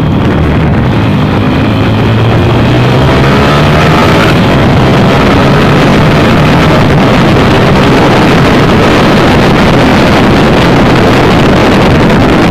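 Honda Tiger Evo single-cylinder four-stroke engine, bored and stroked to about 260 cc (68 mm stroke, 70 mm piston), running loud at high revs under load, with the revs climbing and shifting. Wind buffets the microphone.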